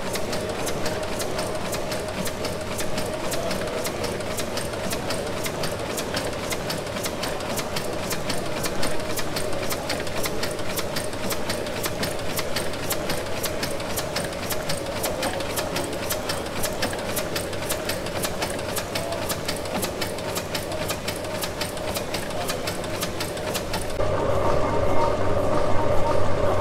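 1904 Sulzer tandem-compound steam engine running, its valve gear giving a fast, even clicking over a steady mechanical hum. Near the end the sound grows louder, with a steady whine at the bevel gearbox that drives the eccentric shaft from the crankshaft.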